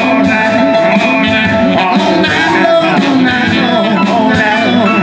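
Live band playing an instrumental break: saxophone over acoustic guitar, electric bass and drums.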